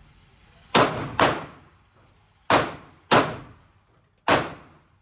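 Five pistol shots, most likely .40-calibre, fired in an uneven string (two quick pairs, then a single), each a sharp crack with a short echoing tail off the walls of an indoor range.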